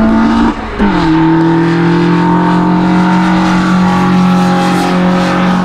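Ford Fiesta XR2 Mk2's engine accelerating hard. Its pitch climbs, then it dips briefly about half a second in at an upshift. The engine then pulls again, its pitch rising only slowly through the next gear, sluggish at high revs for lack of torque.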